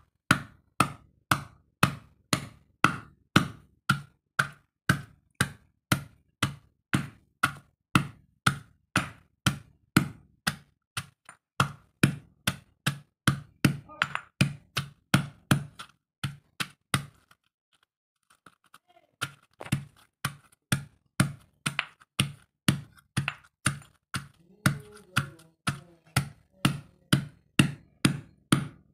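Stone pestle pounding chunks of fruit in a granite mortar: a steady run of dull knocks, about two to three a second, with a pause of about two seconds just past the middle before the pounding resumes.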